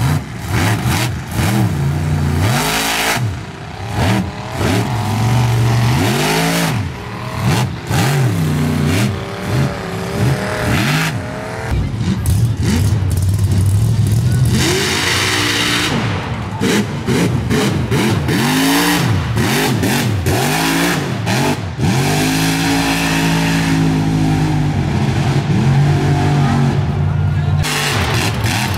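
Mud-bogging pickup trucks' big engines revving hard, the pitch climbing and dropping over and over as they power through a mud pit.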